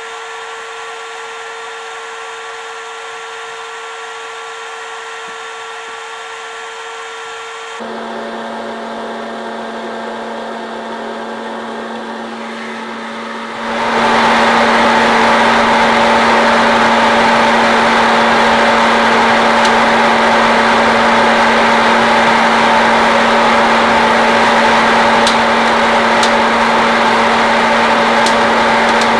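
Hot-air popcorn popper's fan blowing steadily as it roasts coffee beans. Its hum drops lower about a quarter of the way in, and about halfway through it turns much louder and rushier. A few faint ticks come near the end.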